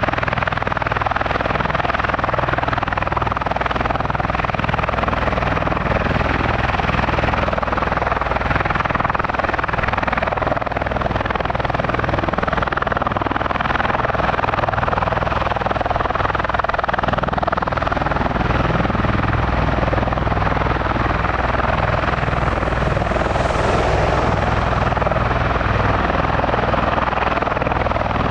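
Marine MV-22 Osprey tiltrotor running steadily: a low, even drone from the big proprotors under a broad rushing noise from its twin turboshaft engines.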